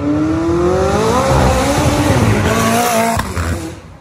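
Car engine accelerating hard, its pitch climbing over the first second and then wavering, over a loud rushing noise; the sound drops away about three and a half seconds in.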